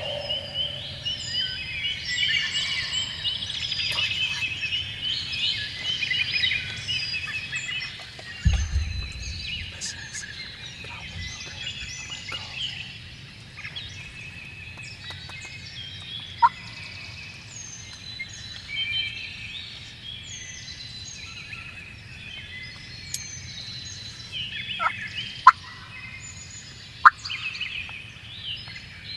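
Dawn chorus of many songbirds chirping and singing, with wild turkeys gobbling; several short, sharp calls stand out near the end. There is a low thump about eight seconds in.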